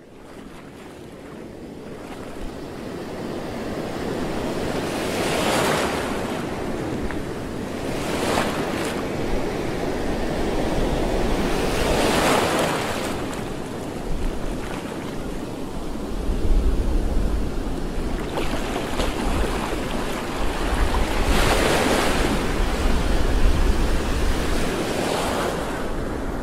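Choppy sea waves washing and splashing, swelling every few seconds, with wind buffeting the microphone as a low rumble in the second half. The sound fades in over the first few seconds.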